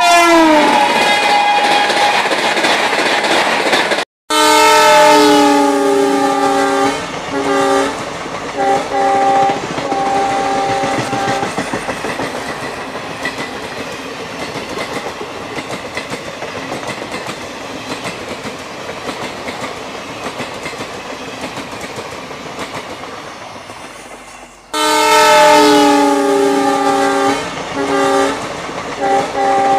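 A locomotive horn sounding a multi-note chord in a series of long and short blasts. It gives way to the steady rumble and clatter of a train running on the rails, which slowly fades. About five seconds before the end an abrupt cut brings back another run of horn blasts.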